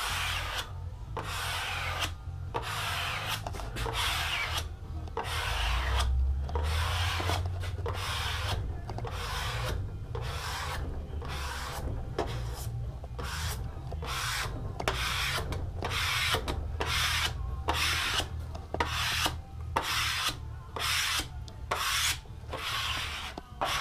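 A small hand applicator rubbing over wet clear traction grip film on a kneeboard deck in repeated overlapping strokes, a little more than one a second, pressing the sheet down onto the board as it sets.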